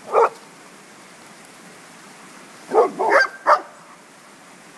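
A dog barking: one bark a moment in, then a quick run of three or four barks about three seconds in.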